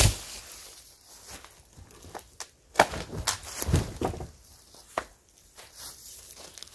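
Old weathered wooden boards being pulled loose from a collapsed shelter and knocking together, with cracks and thuds: a sharp knock at the start, a cluster of knocks about three to four seconds in, and another near five seconds. Steps through dry fallen leaves come in between.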